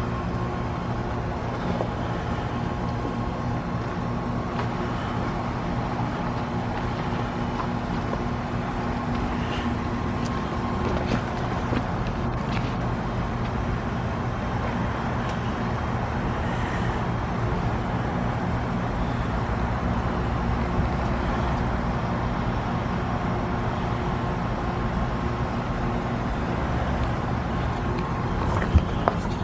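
RunTru heat pump outdoor unit running in defrost mode: a steady compressor hum over a hiss, with two sharp clicks near the end.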